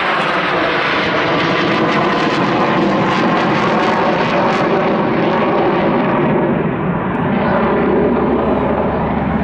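Jet engines of four F/A-18 Hornets flying over in formation: a loud, steady rushing roar. Its hiss dulls from about six seconds in.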